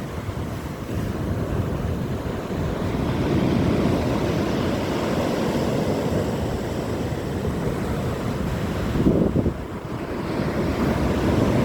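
Sea waves washing in with a steady rush, mixed with wind buffeting the microphone; a louder surge comes about nine seconds in, then a brief lull.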